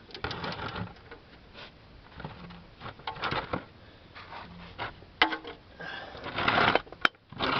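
Hand-tool work on the oil drain plug under a car: irregular metal clicks and scrapes, busier near the end, with one sharp click just before the end.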